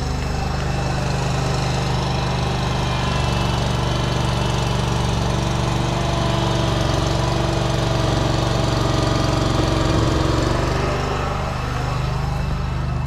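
Engine running at a steady speed, with a higher whine that wavers up and down over it in the middle.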